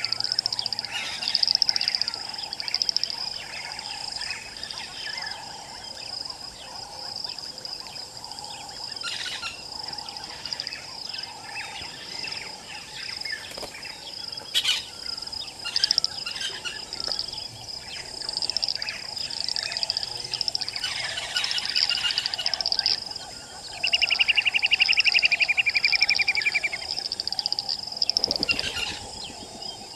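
South African bushveld ambience: insects trill steadily while birds call on and off. A loud, fast trill lasting about three seconds comes about three quarters of the way through and is the loudest sound.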